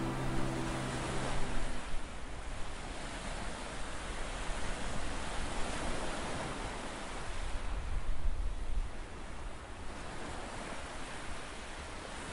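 Tyres rumbling over a cobblestone road, heard from inside a moving car as a steady, uneven noise. The last notes of an acoustic guitar tune fade out in the first two seconds.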